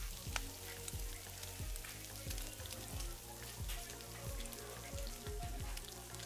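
Meatballs sizzling and crackling on a grill grate, fat spitting in many small pops. Background music with a steady beat runs underneath.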